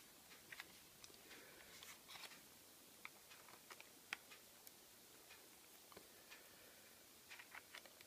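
Near silence, broken by faint scattered plastic clicks and taps as a network cable tester and an RJ45 plug are handled and the plug is pushed into the tester's jack. The sharpest click comes about four seconds in.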